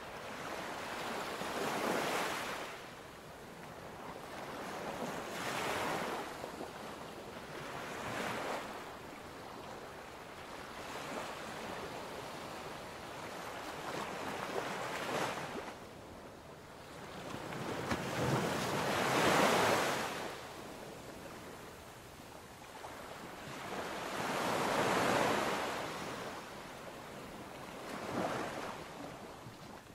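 Ocean waves washing in, the surf swelling and falling away every few seconds.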